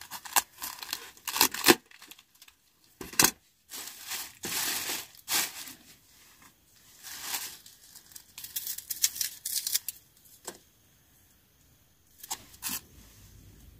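A cabbage being cut with a knife and its leaves torn off on a plastic chopping board: irregular sharp tearing and cutting sounds that die away about ten seconds in, with some crinkling of a plastic bag.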